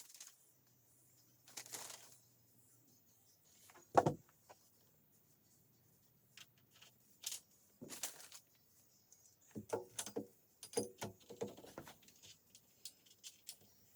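Scattered clicks and knocks of doorknob and deadbolt hardware being handled and fitted, with one louder knock about four seconds in and a run of quick small clicks in the last few seconds.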